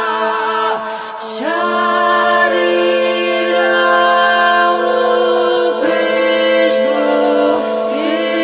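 Chanted singing over a steady held drone note, the melody wavering and moving in phrases, with a short break about a second in.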